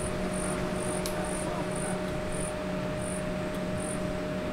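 An insect chirping outdoors in short, high-pitched pulses, about two a second, over a steady low hum. A single sharp click comes about a second in.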